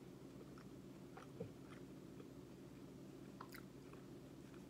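Faint chewing of fast food with the mouth closed, with a few small, scattered mouth clicks over a low steady room hum.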